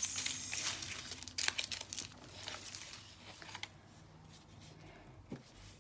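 Small plastic bags of diamond painting drills crinkling and the paper colour chart rustling as they are handled, with a few sharp clicks; busiest in the first two seconds, quieter after.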